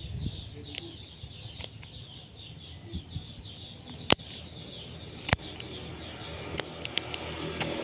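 Pruning shears snipping small branches off a Premna bonsai: a handful of sharp clicks, the loudest about four seconds in and another just past five seconds. Birds chirp faintly in the background.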